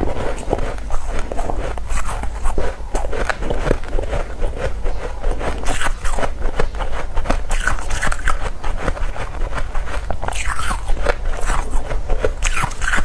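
Close-miked biting and chewing of powdery freezer frost, a dense run of soft crunches and crackles.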